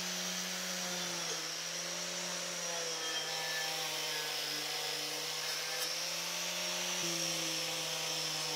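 Electric angle grinder with a wire cup brush running at a steady whine, the brush scouring rust and crust off an old iron square nail.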